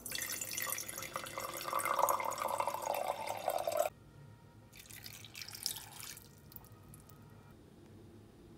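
Water pouring into a glass measuring cup, splashing for about four seconds and cutting off suddenly. About a second later, a shorter, quieter pour of water follows.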